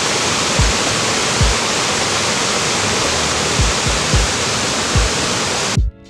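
Whitewater rushing over rocks in a cascading stream: a loud, steady rush of water noise that cuts off suddenly near the end.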